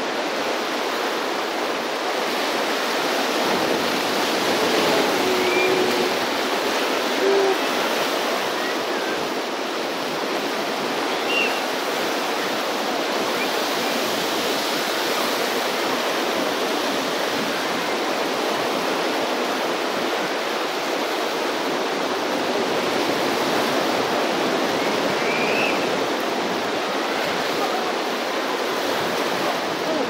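Ocean surf: large swell waves breaking and washing ashore, a continuous rushing that grows a little louder twice.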